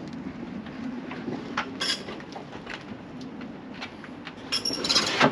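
A vehicle on the road towing a loaded trailer: a steady low hum with frequent short rattles and knocks, getting louder near the end.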